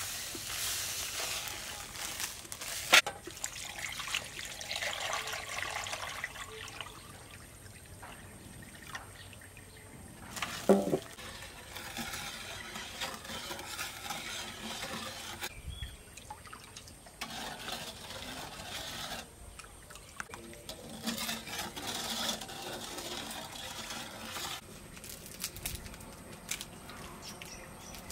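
Liquid pouring and splashing in uneven stretches, with a sharp knock about three seconds in and another, with a brief ringing tone, near eleven seconds.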